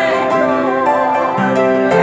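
Small church choir singing a gospel song together, holding long notes.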